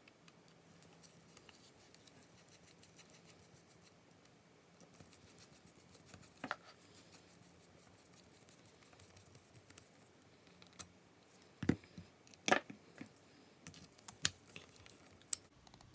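Wheeler torque screwdriver driving the small mounting screws of a red dot sight: faint scraping and handling, with a few sharp clicks, mostly in the second half.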